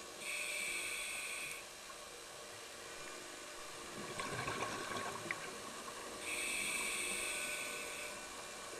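Scuba diver breathing through a regulator underwater: a hissing inhalation at the start, a rush of exhaled bubbles about four seconds in, then a second hissing inhalation.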